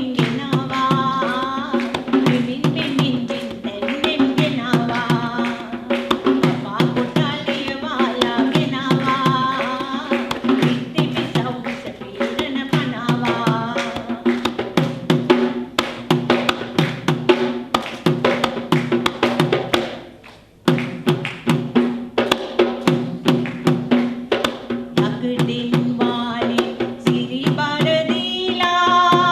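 Traditional Sri Lankan drums played in a fast, dense rhythm over a steady low tone, with a higher wavering melodic line coming and going on top. The drumming stops for a moment about two-thirds of the way through, then starts again.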